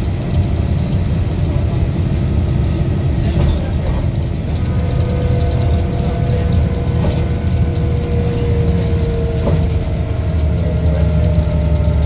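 MAZ 203 low-floor city bus running, heard from inside: a steady low drivetrain rumble, with a thin whine that comes in about four seconds in and slowly falls in pitch.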